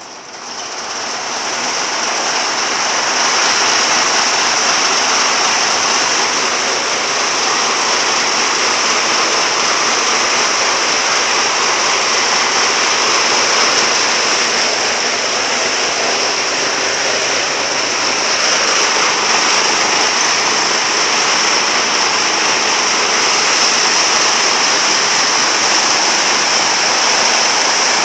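Paddy threshing machine running steadily: a loud, even rushing noise with a strong high hiss. It builds up over the first couple of seconds, then holds level.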